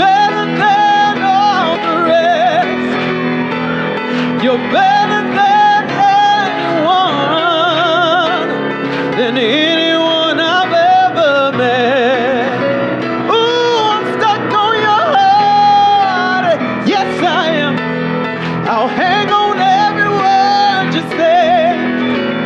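A solo singer belting and riffing over live piano accompaniment, with wide vibrato on the long held notes and quick vocal runs between them.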